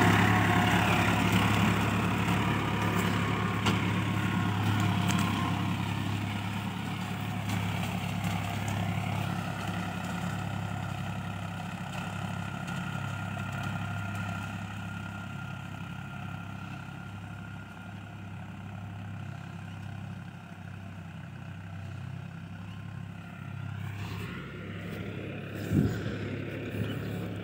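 Farmtrac 60 tractor's diesel engine running steadily under load while pulling a disc harrow, growing slowly fainter as it moves away. Near the end the engine note rises as it revs up, with one sharp knock shortly after.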